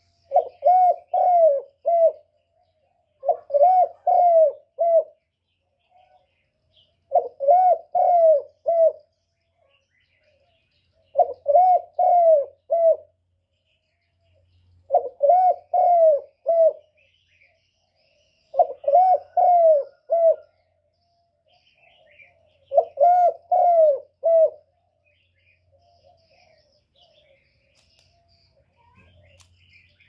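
Spotted dove cooing: seven phrases of about four coos each, repeated roughly every four seconds, stopping about five seconds before the end.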